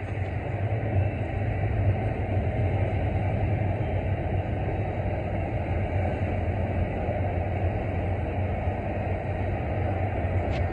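Union Pacific train's cars rolling past on the track: a loud, steady rumble of wheels on rail.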